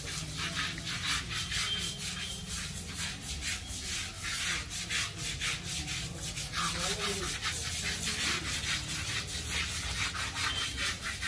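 Rhythmic scrubbing of an elephant's hide during its bath, a rough scraping stroke about three or four times a second.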